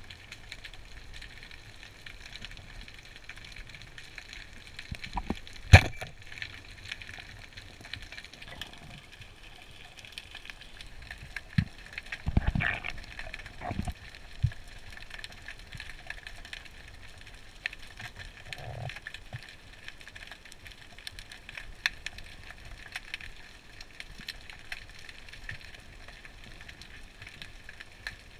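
Underwater ambience heard through a camera's waterproof housing: a steady hiss with constant faint crackling clicks, broken by a few knocks, the loudest about six seconds in and a cluster around twelve to fourteen seconds.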